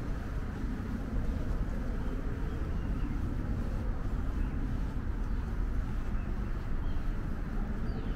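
Steady low rumble of distant road traffic, with a few faint high chirps.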